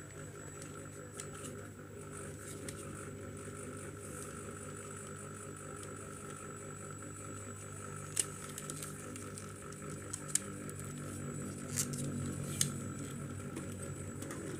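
A few sharp plastic clicks and knocks, mostly in the second half, as a laser printer's drum unit is handled, over a steady low hum.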